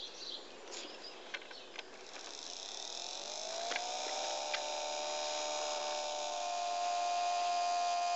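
Electric blower fan set on a live-steam model locomotive's chimney, spinning up about three seconds in and settling into a steady whine that grows louder, drawing air through the firebox to get the fire going for raising steam. A few faint clicks come before it.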